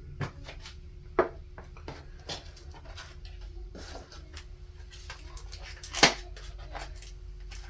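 Dip powder jars and kit packaging being handled and set down on a table: scattered light clicks and taps, with two sharper knocks, one about a second in and a louder one about six seconds in.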